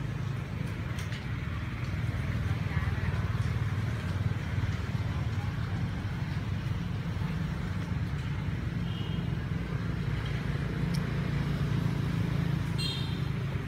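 Steady low outdoor rumble, with brief faint high-pitched calls about nine seconds in and again near the end.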